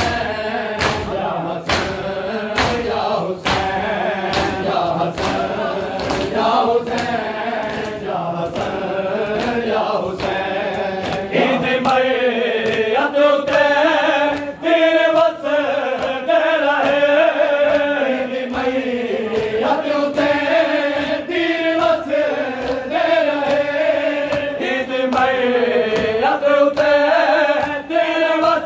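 A crowd of men chanting a noha in unison, kept in time by a steady beat of open-hand slaps on bare chests (matam). About halfway through, the chanting grows louder and the slaps fade under it.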